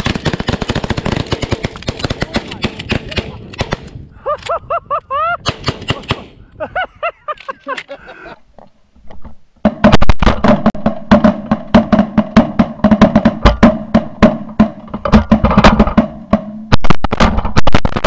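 Rapid, overlapping shotgun fire from several hunters shooting into a flock of pigeons, many shots a second, in two long volleys. Between the volleys are a few seconds of shouting.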